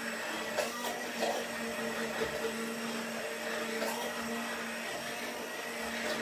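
Electric blender running steadily, puréeing a soft silken-tofu custard mixture.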